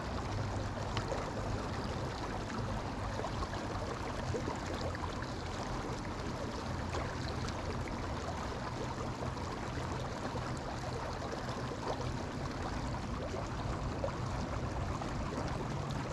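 Small creek running over a shallow rocky riffle: a steady rush of water.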